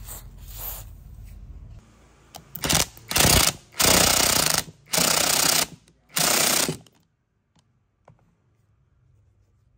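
Cordless impact wrench hammering in five or so short bursts on the rusted clutch nut of a small two-stroke brush cutter engine, working it loose. Just before, a short hiss from an aerosol can of penetrating oil sprayed through a straw.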